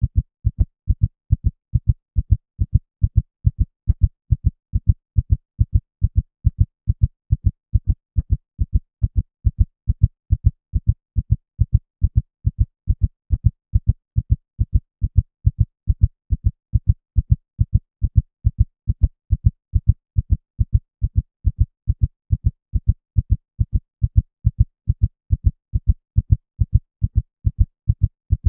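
Heartbeat: steady, regular low thumps, about two a second, keeping an even pace and loudness.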